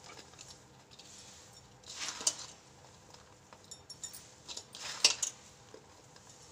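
Hands working a crumbly mixture of roasted flour, ghee and powdered sugar in a steel bowl: soft scraping rustles, louder about two seconds in and again about five seconds in, with a few faint ticks against the bowl.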